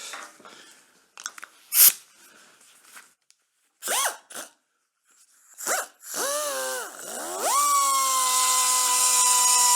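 A small electric power tool is blipped briefly twice, then run up to speed and held at a steady high-pitched whine for the last few seconds. A sharp knock comes about two seconds in.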